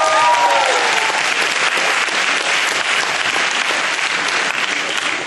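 Audience applauding steadily in a hall, with a few rising-and-falling cheering calls from the crowd in the first second.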